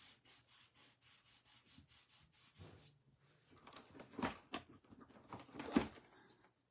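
Folded cardstock being rubbed down with a bone folder to crease the fold. First a quick, even run of faint scrapes, about four or five a second. After about three and a half seconds come louder, slower strokes.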